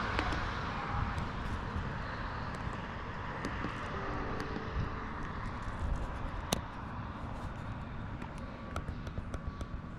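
Steady low outdoor rumble and hiss with scattered light clicks and one sharp knock about six and a half seconds in.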